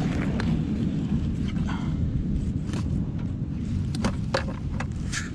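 Handling noise on an action camera's microphone: a steady low rumble with scattered scrapes and clicks as the camera rubs against the fabric of a fishing vest.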